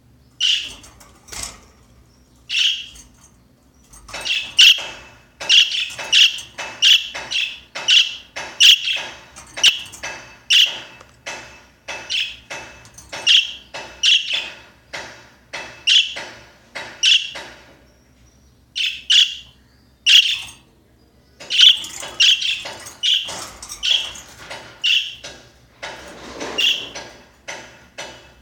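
Pet budgerigar giving a long series of short, sharp chirping calls, one or two a second, with a couple of brief pauses: the strange noise the bird makes in its cage.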